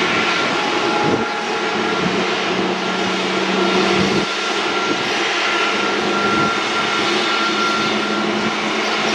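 Airliner jet engines running loud and steady, a wide rushing noise with a faint thin whine over it.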